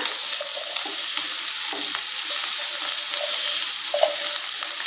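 Steady sizzling in a non-stick pan of oil-fried onion, peanuts and potato as soaked flattened rice (poha) is tipped in and stirred, with a few faint scrapes.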